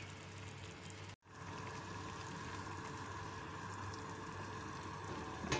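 Chicken and vegetables simmering in water in a cooking pot, a steady soft bubbling. A short louder sound comes right at the end.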